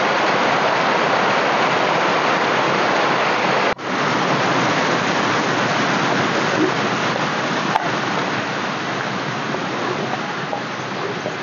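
Small hillside stream splashing down over rocks, a steady rushing of water. It breaks off for an instant about four seconds in, then continues, a little fainter toward the end.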